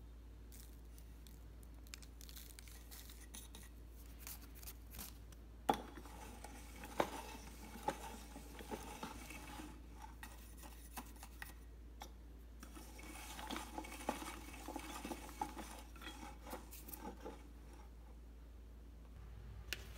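Manual metal meat grinder grinding dry pig-feed pellets into powder: faint crunching with scattered metallic clicks and some crinkling of the plastic bag. It comes in two busier stretches, with quieter spells in the first few seconds and near the end.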